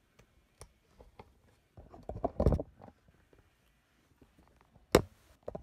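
Handling noise from a handheld phone camera being moved: scattered soft clicks, a short spell of rustling about two seconds in, and a sharp click about five seconds in.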